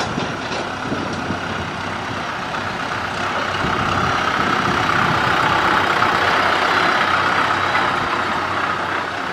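Diesel engines of Kubota farm tractors running as they drive past close by, growing louder toward the middle and easing off near the end.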